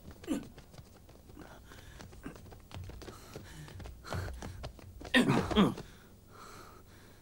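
Footsteps and scuffling of guards hauling in a rope-bound prisoner, heard as scattered clicks and shuffles. A voice cries out briefly about five seconds in.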